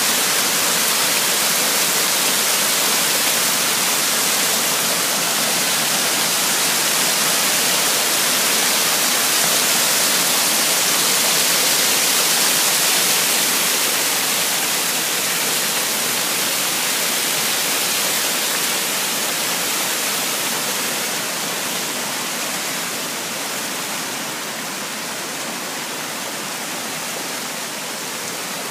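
Creek water rushing over a small waterfall and shallow rock-ledge cascades, a steady loud rush that grows gradually softer over the second half.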